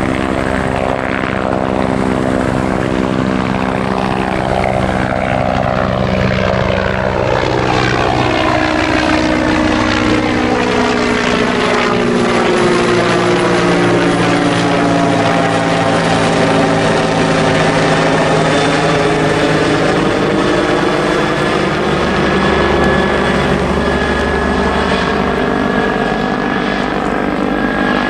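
Bell CH-146 Griffon military helicopter, a twin-turbine Bell 412 type with a four-bladed main rotor, flying past overhead with a steady rotor and turbine drone. It is loudest about halfway through as it passes closest, then eases off a little.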